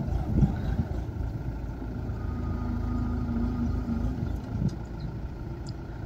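Paddy combine harvester running steadily as it cuts standing rice, a steady low engine drone with a thin whine above it. Wind buffets the microphone in the first half second.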